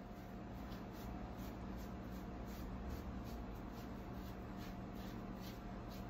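Paintbrush stroking over a carved wooden parrot: faint, repeated scratchy swishes, about two a second, over a steady low hum.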